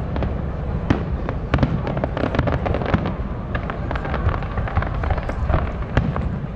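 Aerial fireworks going off: an irregular string of sharp bangs and crackles, several a second, over a steady low rumble.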